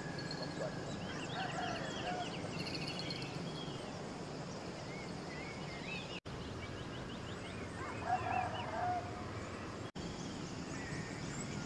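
Early-morning birdsong: many small birds chirping and trilling over a steady background hiss, with a louder, lower call about eight seconds in. The sound cuts out for an instant twice.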